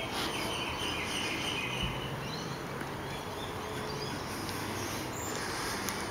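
Steady outdoor background noise, with faint high chirping in the first two seconds.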